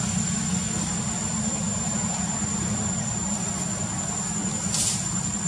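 Steady background noise: a low continuous rumble with a constant thin high-pitched tone above it, and a short hiss about five seconds in.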